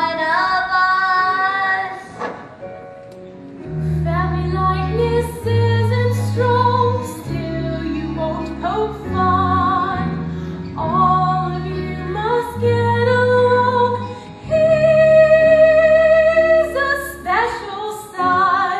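A female voice singing a show tune with vibrato over instrumental accompaniment, with low bass notes coming in about four seconds in.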